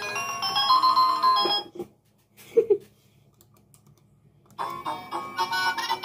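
Toy mini claw machine playing a beeping electronic tune as it powers on; the tune stops before two seconds in. A single short sound comes about halfway through. After a button on the machine is pressed, a new tune starts near five seconds in.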